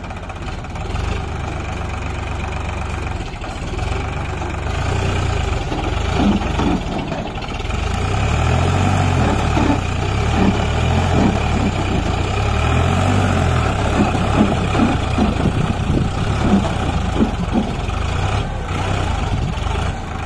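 Diesel tractor engine running steadily, growing louder and working harder from about eight seconds in.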